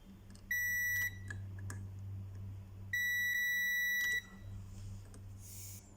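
Multimeter continuity beeper sounding twice, a short beep and then a longer one, as the probes are held across the power supply fuses; the beep means each fuse conducts and is not blown.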